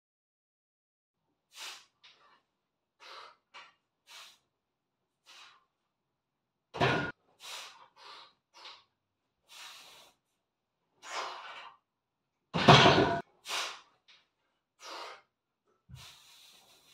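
A man's short, sharp breaths, in and out, while he bench presses a 130 kg barbell, with two much louder strained grunts of effort about seven and thirteen seconds in.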